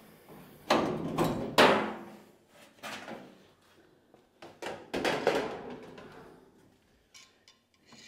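Washing machine's panel being worked loose, pulled off and handled: a series of knocks, clatters and scrapes in the first five or so seconds, then a few faint clicks.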